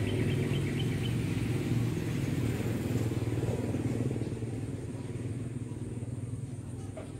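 A motor vehicle engine running with a steady low hum that gradually fades over the second half, as if driving away.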